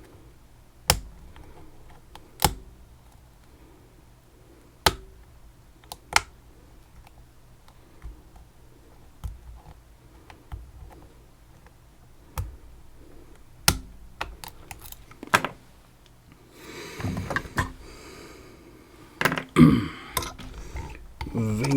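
Sharp metallic clicks and taps from tools working a vintage Ving lock, one at a time with irregular gaps, then a busier stretch of scraping and rattling metal in the last few seconds.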